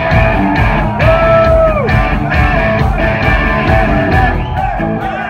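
Hard rock band playing live and loud: distorted electric guitars over bass and drums, with held notes that bend up and fall away in pitch.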